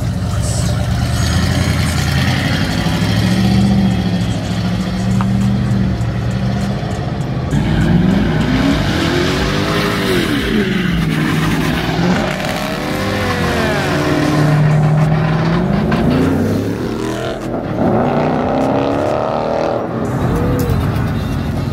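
Car engines at a car meet: a low, steady engine note, then from about seven seconds in an engine is revved up and let fall again and again, the pitch rising and dropping in repeated swoops.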